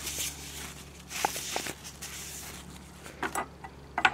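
Paper towel wiping out the inside of an empty metal pellet tin, a soft rubbing and scrubbing with a few light clicks and taps of the tin, to clear out leftover flecks of lead.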